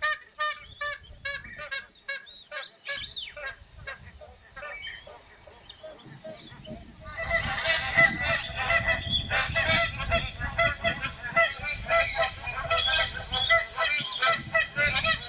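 Magpie geese honking: a run of separate repeated calls, then from about seven seconds in a louder, denser chorus of many calls overlapping.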